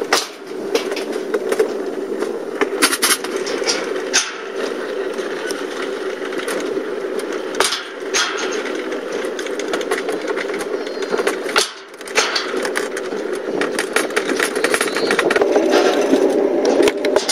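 Sleds on a stainless steel bobsled track rumbling and rattling along the metal trough: a steady hum with constant fine clicking. It grows louder and brighter near the end, where a sled is being hauled up the cable lift.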